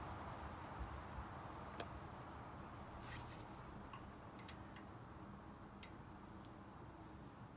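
Scattered light metallic clicks and ticks as lug nuts are handled and threaded by hand onto the studs of a wheel spacer bolted to a brake rotor.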